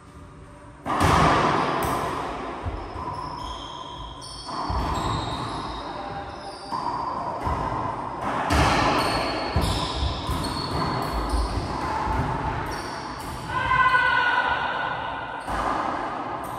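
Racquetball rally: the ball cracking off racquets and the court walls, each hit echoing in the enclosed court, with short high squeaks between hits.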